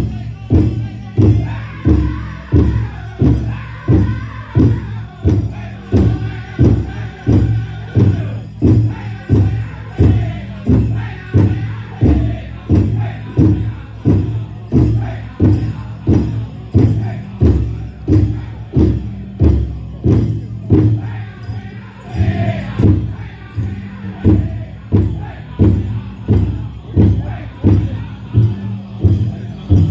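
Powwow drum group playing a chicken dance song: voices singing together over a large bass drum struck in a steady beat, about one and a half strikes a second.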